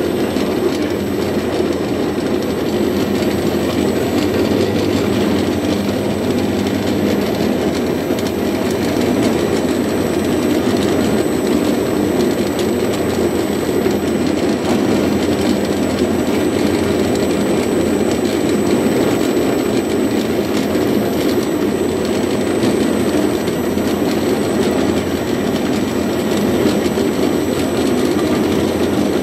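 Stephan UMSK 24 vertical cutter-mixer running steadily at speed, its blade chopping and mixing surimi paste into fish-ball dough.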